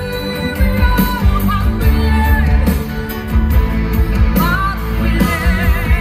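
Live pop-rock concert music heard from within the audience: a band with heavy bass and guitar playing loudly over a large PA, and a woman singing the melody into a microphone.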